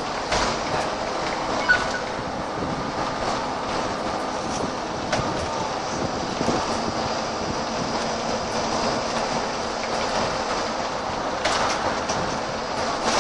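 On board a VDL SB120 Wright Cadet single-deck bus under way: the diesel engine runs under steady road and cabin noise, with a few sharp clicks from the body, and the engine note shifts about halfway through.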